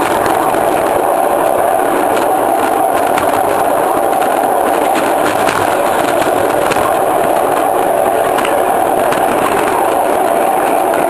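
Caboose rolling along the track: a steady rumble of its wheels on the rails, with faint irregular clicks from the rail joints.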